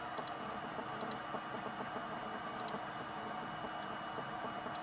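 Computer mouse clicking, about five short sharp clicks, several in quick pairs, over a steady hum with a faint high whine.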